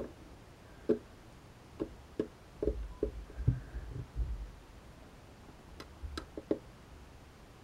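Scattered light taps and clicks from a thin rod moving in a plastic cup of liquid, with a few dull thumps in the middle.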